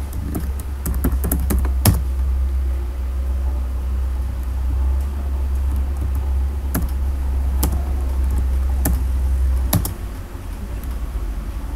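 Computer keyboard keys clicking: a quick run of keystrokes in the first two seconds, then single key presses about a second apart, while a command is typed and corrected. A steady low hum runs underneath and drops away about ten seconds in.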